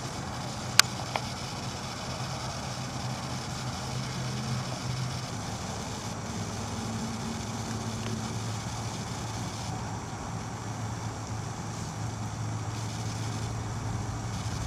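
An engine idling steadily with a low hum, with two sharp clicks about a second in.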